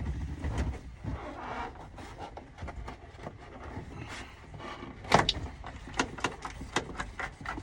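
Rubber door seal being pulled down off the truck cab's A-pillar edge, with scattered light clicks and knocks from handling the trim, and one sharper click about five seconds in.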